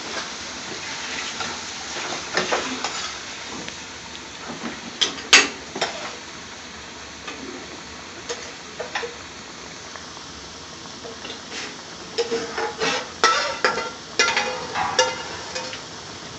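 Chicken tikka masala sauce sizzling in a pan while it is stirred with a metal utensil that clinks and scrapes against the pan. The clatter gets busier in the last few seconds.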